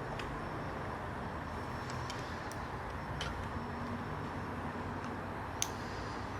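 A few light, sharp plastic clicks from a toy bike's buckles being handled and fastened, the sharpest about five and a half seconds in, over a steady background hum.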